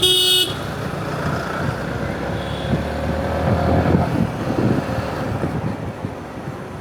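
Riding a Yamaha MT-15 motorcycle through city traffic: engine and road noise with wind on the microphone, and a short, loud vehicle horn honk right at the start.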